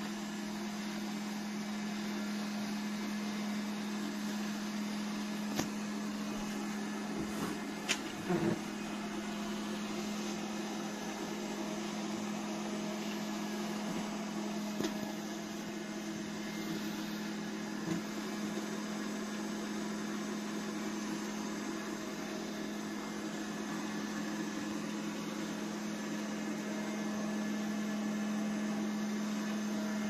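Laresar Evol3 robot vacuum running, a steady motor hum and whir, with a few brief knocks scattered through.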